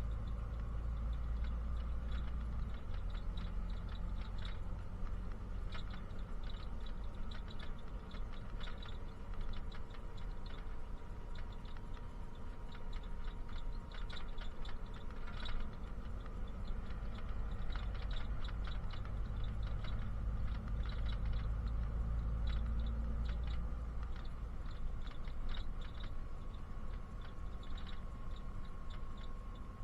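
Inside a moving bus: the engine and road noise make a steady low rumble with a faint drifting whine. Many quick, irregular little clicks come in clusters throughout, and the low rumble shifts in strength a few times as the engine load changes.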